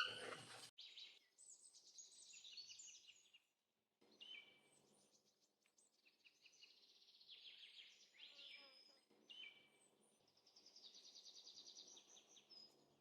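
Faint birdsong: high trills and short whistled notes, some sliding downward, coming and going with short pauses.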